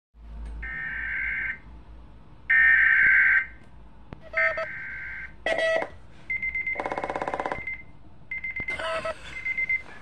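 Emergency alert system header tones: three data bursts of about a second each of warbling, modem-like digital tones with gaps of about a second, followed by shorter tone beeps, a rapid pulsing buzz, and more tone bursts near the end.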